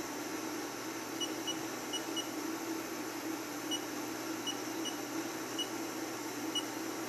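Keypad beeps from a Haas SR-100 CNC router's control pendant as program keys are pressed: about nine short, identical high beeps at irregular intervals, over a steady low hum.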